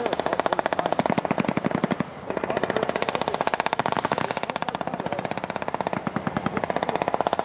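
UH-60 Black Hawk helicopters passing close, their main rotors giving a fast, even blade slap that dips briefly about two seconds in.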